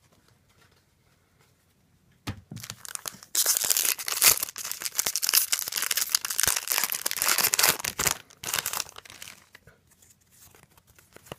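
Trading card pack wrapper being torn open and crinkled, starting about two seconds in and lasting several seconds, then tapering into light clicks of cards being handled.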